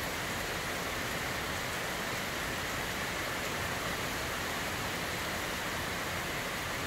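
Steady heavy rain falling, an even unbroken rush of downpour.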